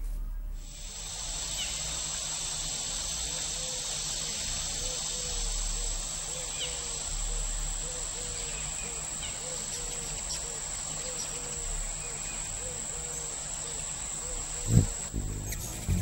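Steady high-pitched insect trill over an even hiss of outdoor ambience, with a soft lower chirp repeating about twice a second. A single sharp thump sounds near the end.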